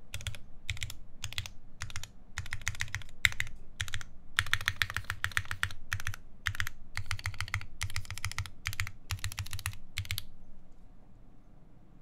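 Typing on a Keycult No. 1 Rev 2 tenkeyless mechanical keyboard with lubed ZealPC Tealios linear switches, a full aluminum plate and GMK keycaps. Rapid keystrokes come in short bursts and stop about ten seconds in.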